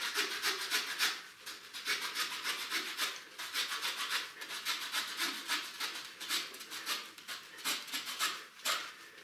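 Small hand saw cutting through a thawed green sapling, wood rasping in quick back-and-forth strokes with a few brief pauses.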